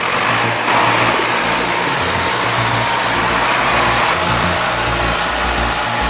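Heavy machinery engine running loud and steady, with a high whine, over background music with a low bass line.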